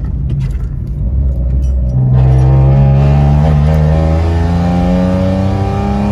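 Citroen C1 engine and exhaust heard from inside the cabin while driving: a loud drone that jumps up about two seconds in and then rises slowly in pitch as the car accelerates. The exhaust is effectively straight-piped, because the welded repair section has sheared and come off, and the driver says it sounds awful.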